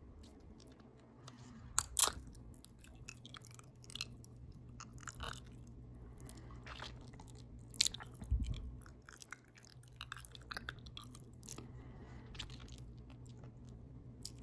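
Close-miked open-mouth chewing of a potato taco bowl: wet smacking and clicking of lips, teeth and tongue in irregular bursts. A sharp click stands out about two seconds in, and a short low sound about eight seconds in.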